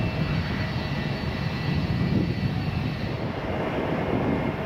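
The General Electric GE90 turbofan engines of a Boeing 777-300ER jet airliner running: a steady, deep rumble with a thin high whine on top.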